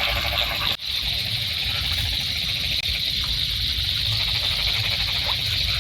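Night chorus of frogs and insects calling steadily over a low rumble, cutting out briefly about a second in.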